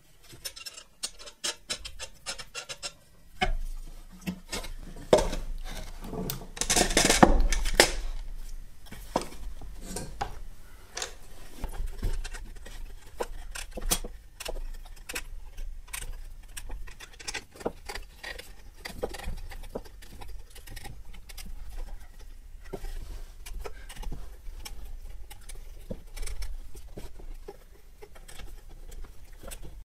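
Handling noises of assembling a plywood router mount: small clicks and scrapes of bolts and wing nuts against plywood clamp rings holding a DeWalt router motor, with a longer, louder scrape about seven seconds in.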